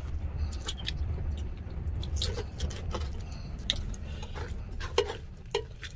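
Wooden spatula scraping and stirring fried rice in a hot electric pan, working loose the crisp rice crust (tutong) stuck to the bottom, in scattered clicks and scrapes over a low steady rumble.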